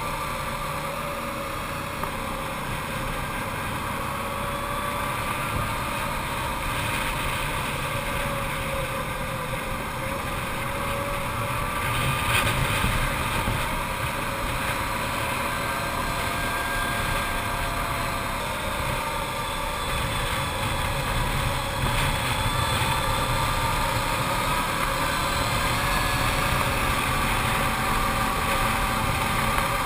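Arctic Cat TRV 1000 ATV's V-twin engine running steadily while riding, its pitch drifting gently up and down with the throttle and getting a little louder about halfway through.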